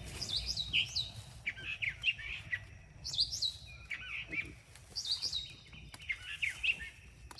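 Songbird singing in short, repeated phrases of quick, falling chirps, one phrase about every one to two seconds, over a faint low outdoor rumble.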